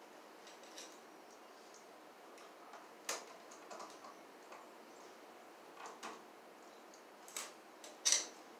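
Pliers working the wires at an electrical outlet box: irregular small sharp clicks and ticks of metal tool on wire, the loudest about three seconds in and near the end.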